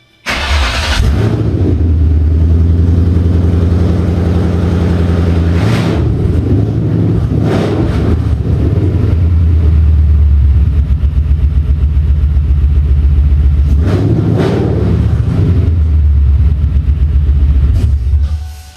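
Ford Coyote 5.0 V8 fires up, idles and is briefly revved about three times, then shuts off near the end. It now starts and runs because the tach wires to the Coyote crank trigger are disconnected, which cures the no-start.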